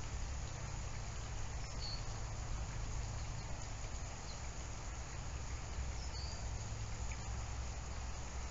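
Steady outdoor background ambience: a low hum under a faint even hiss, with a few short, faint high chirps about two, four and six seconds in.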